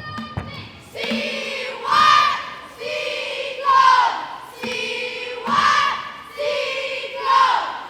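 Cheerleading squad shouting a cheer in unison, short chanted phrases repeating in a steady rhythm about once a second, every other one louder and higher.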